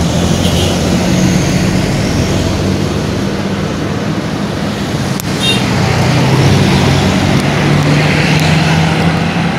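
Heavy road vehicle's engine running with traffic noise around it: a steady low drone that grows a little louder in the second half, with a brief click about five seconds in.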